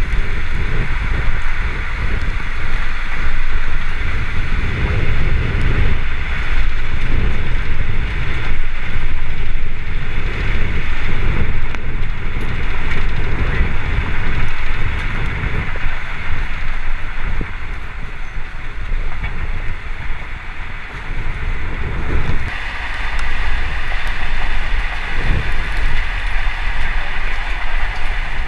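Strong wind buffeting the microphone in gusts over the steady rumble and hiss of the TVN Dominator armored chase vehicle on the move. About 22 seconds in, the gusty low rumble eases and a steadier hiss comes forward.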